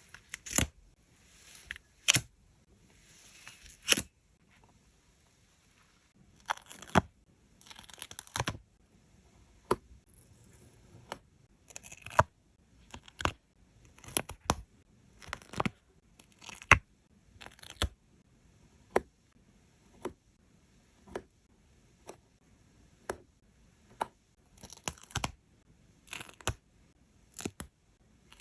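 Paper stickers being peeled from their backing sheet and pressed down by hand: a series of short rasps of peeling paper and sharp taps, about one a second.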